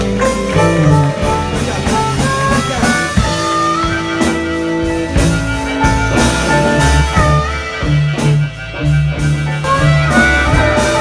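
Live blues band playing an instrumental passage without vocals: electric guitars, keyboard, upright bass and drums, with a harmonica playing held and bending notes.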